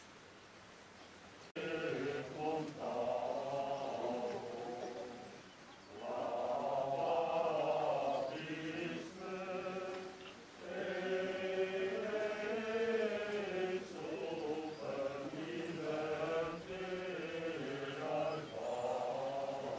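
Voices singing a slow church chant, starting abruptly about a second and a half in and going on in long held phrases with short breaks.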